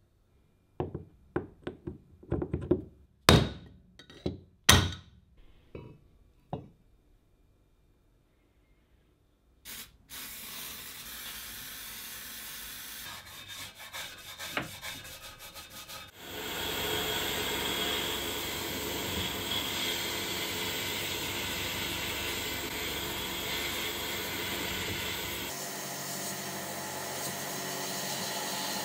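A few sharp clinks and knocks of small metal drill-stand parts being handled and set down. Then a stiff brush scrubbing a rusty part in a metal tray. Just past halfway comes the steady loud hiss of a sandblasting gun in a blast cabinet, stripping rust from the drill-stand base plate.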